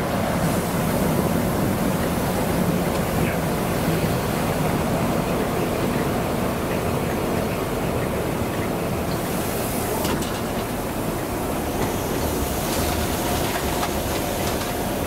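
InterCity 125 High Speed Train running along the line at speed, heard from on board: a steady rumble of wheels on rail mixed with rushing air, with a couple of faint clicks about ten and thirteen seconds in and a faint steady tone joining near the end.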